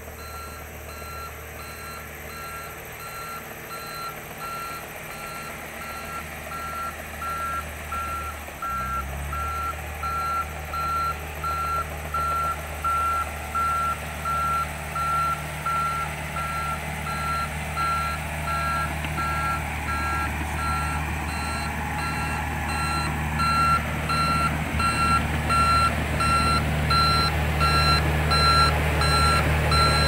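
Komatsu D31EX crawler bulldozer reversing, its diesel engine running under a reverse alarm that beeps about once a second. The engine picks up just before 9 seconds in, and the whole sound grows louder as the machine approaches.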